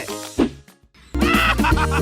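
Background music that fades and drops out briefly about half a second in, then comes back in loud just after a second with a steady bass line.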